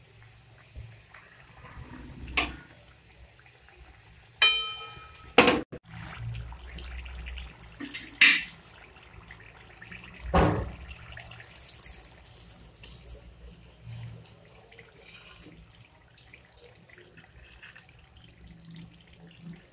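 Samosas deep-frying in hot oil in an aluminium kadai, a faint steady sizzle, with a metal slotted spoon knocking and scraping against the pan in a handful of sharp clinks as the samosas are turned and lifted.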